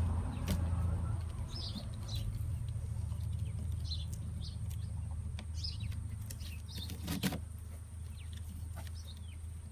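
Birds chirping, short calls repeating every second or two, over a steady low hum, with a single sharp knock about seven seconds in.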